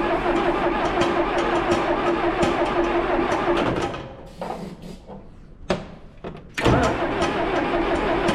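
John Deere 710 backhoe's diesel engine being cranked over by the starter, with a steady starter whine, without catching: fuel is not reaching the injectors from the injection pump. The cranking stops about four seconds in and starts again abruptly after a pause of under three seconds.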